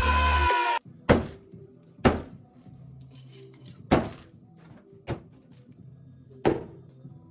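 Music cuts off within the first second. Then five sharp knocks spread over several seconds, as objects (a book, metal spray cans, a plastic bottle) are set down on a wood-topped table.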